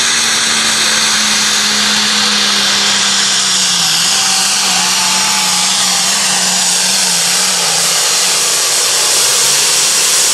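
A 4.1 Limited Pro Stock pulling tractor's turbocharged diesel engine running flat out as it drags the sled, a loud steady drone with a high turbo whine over it. The engine note sags a little about four seconds in as the sled's weight loads it down, and the sound drops away right at the end as the pull ends.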